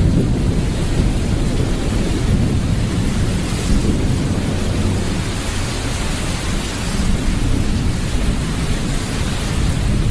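Loud, steady rumbling noise with a dense hiss over it, heaviest in the low end, with no distinct hits or tones.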